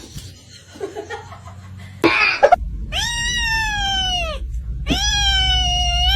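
Domestic cat meowing: two long drawn-out meows, the first falling in pitch, the second rising and then held. A brief noisy burst comes just before them.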